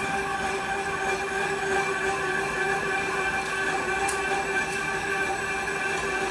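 Workshop machinery running: a steady electric-motor hum with a constant whine that holds one pitch throughout, and a faint click about four seconds in.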